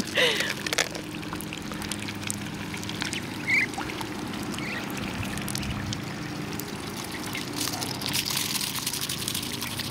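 Young Muscovy ducks pecking black oil sunflower seeds from a hand and off the sandy ground: scattered light clicks and taps, busiest near the end, with one brief high call about three and a half seconds in, over a steady rushing background like trickling water.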